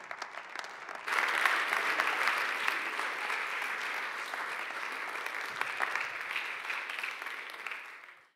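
Audience applauding, growing louder about a second in and fading out near the end.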